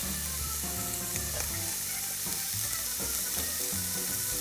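Diced bacon sizzling steadily with fine crackles in a very hot frying pan, rendering its own fat with no oil added.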